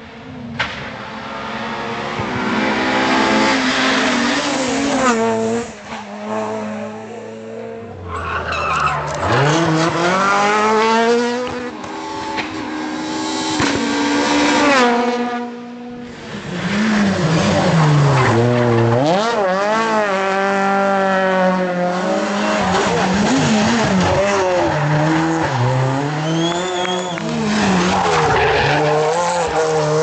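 Renault Clio R3 rally cars' 2.0-litre four-cylinder engines revving hard, pitch climbing and dropping through quick gear changes and lifts for corners, with some tyre squeal. Several passes are joined together, so the sound shifts abruptly twice.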